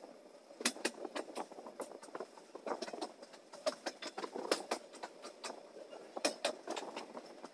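Passenger train coach running along the track, heard from the open doorway: a steady running noise with many irregular sharp clicks and rattles.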